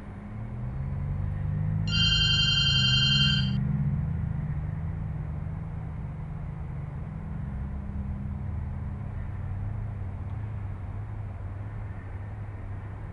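A telephone ringing once, a rapid trill of high tones lasting about a second and a half, over a low, steady, swelling drone.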